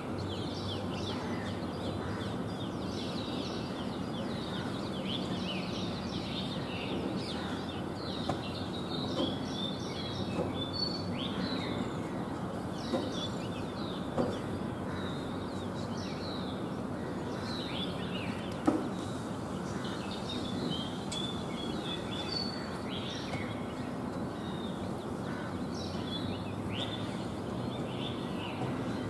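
Songbirds chirping and calling, with many short high chirps through the whole stretch, over a steady low background hum. About two-thirds of the way through there is a single sharp tap.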